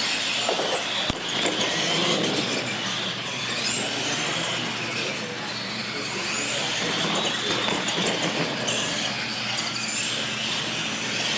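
Electric R/C monster trucks racing flat out, their motors whining with shifting pitch over the rush of tyres on a concrete floor, starting suddenly at the green light. A single sharp knock about a second in.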